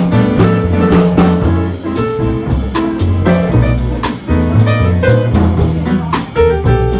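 A small jazz band playing a piece, with drum kit and bass under the melody. Sharp drum or cymbal accents land about every two seconds.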